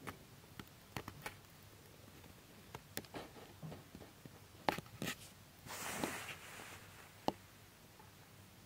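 Light handling noises from a cardboard box held in the hand: scattered sharp clicks and taps, with a short rustle about six seconds in.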